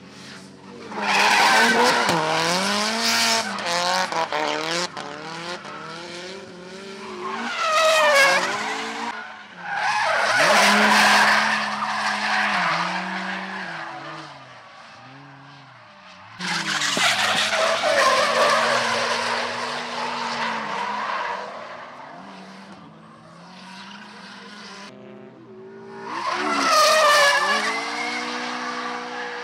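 Drift cars sliding through a corner one after another: tyres screeching as they skid, over engines revving up and down hard. There are several loud passes that swell and fade away.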